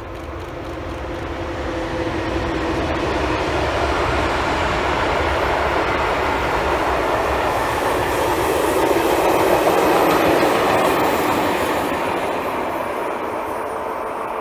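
Freight train hauled by a Cargoserv Taurus electric locomotive passing at speed: rumble and clatter of the hopper wagons on the rails, growing louder to a peak about ten seconds in and then fading as the train goes by.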